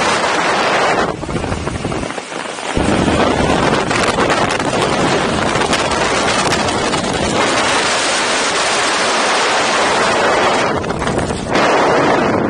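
Loud rush of wind over the skydiver's camera microphone as he flies a small, fast swoop canopy down to the landing area. The wind noise eases for a moment about two seconds in, then comes back full.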